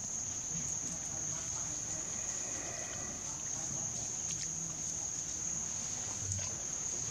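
Insects droning in one steady, high-pitched whine that does not let up.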